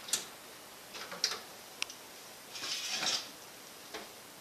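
A few sharp clicks from a built-in electric oven's control knob being turned, then a short rattle as the oven door is pulled open, about three seconds in.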